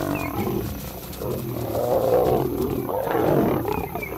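Lions snarling and growling in a fight between lionesses and a male. The loudest snarls swell about two seconds in and again just after three seconds.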